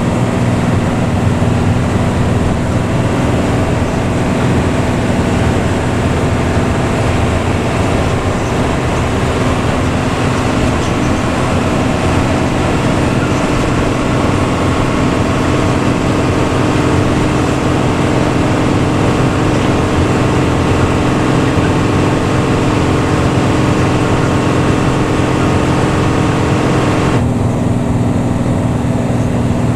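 Intercity bus's diesel engine and growling 'ngorok' exhaust running steadily under way, with road and tyre noise. Near the end the hiss above the engine note drops away suddenly, leaving the low drone.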